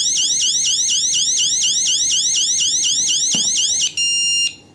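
Roombanker indoor alarm siren sounding, a loud rapid wail of repeated rising sweeps, which cuts off about four seconds in as the system is disarmed, followed by a short steady beep.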